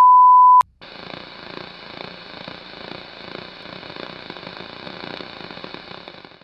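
Television test-card tone, one steady beep, that cuts off with a click under a second in, followed by a steady hiss of TV static.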